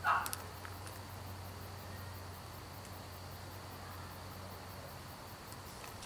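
Faint outdoor background: a fast, even, high-pitched pulsing over a low steady hum.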